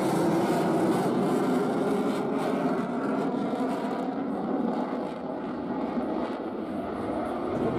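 Twin jet engines of a US Navy F/A-18 fighter roaring in a steady rush as the jet flies past and away. The hiss at the top of the sound fades from about four seconds in as it recedes.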